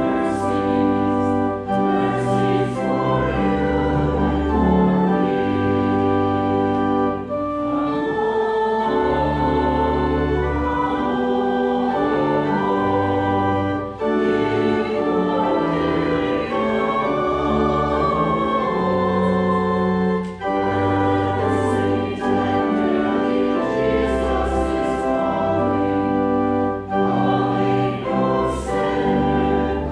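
Organ music: slow sustained chords that change every second or two over a moving bass line.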